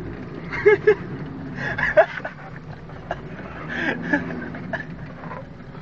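Steady engine and road noise inside a moving car's cabin, with a few short, louder sounds about a second in, around two seconds and around four seconds.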